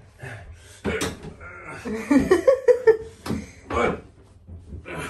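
Alaskan Malamute grumbling and moaning in a string of short, wavering vocal complaints, loudest about two to three seconds in, in protest at being lifted into a bath.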